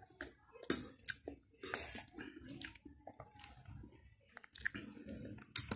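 Spoon and fork clinking and scraping on a plate as food is scooped up, with several sharp clinks, the loudest near the start. Close-up chewing and mouth sounds run between the clinks.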